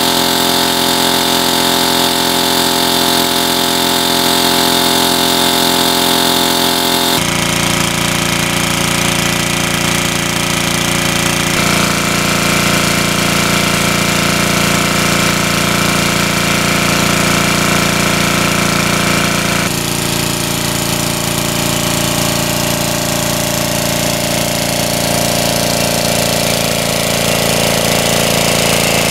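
Small engine-driven water pump running steadily at full throttle, pumping water through a large suction hose. Its tone changes abruptly three times.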